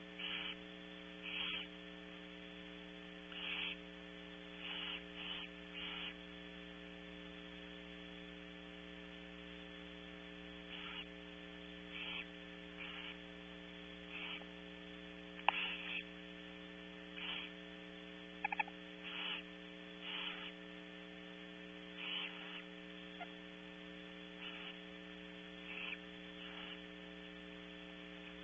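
Barn owls giving short rasping hisses every second or two, over a steady electrical hum, with one sharp click about halfway through.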